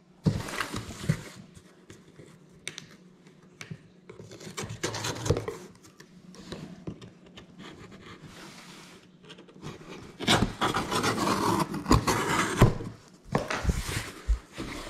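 A cardboard shipping box is cut open with a knife and its flaps are pulled back: scraping and rubbing of blade, tape and cardboard in several bursts. The longest and loudest scraping comes about two-thirds of the way through.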